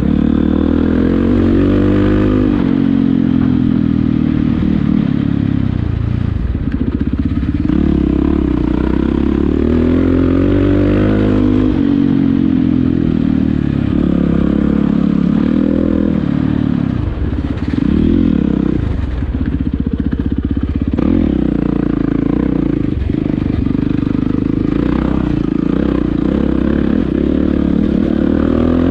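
Single-cylinder four-stroke enduro dirt bike engine under way, its revs climbing and dropping again and again with throttle and gear changes.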